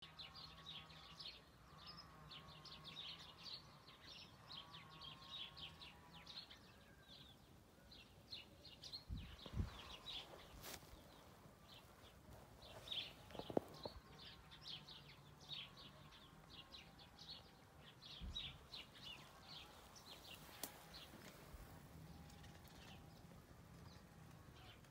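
Faint chirping of small birds, many short rapid calls throughout, over a low hum that comes and goes. A few low thumps, the loudest around ten and fourteen seconds in.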